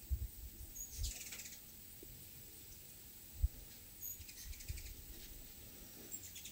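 Hummingbirds' territorial chatter as they chase each other around the feeders: short high chips and rapid twittering runs about a second in and again around four and a half seconds. A few low thumps come through as well, the loudest about three and a half seconds in.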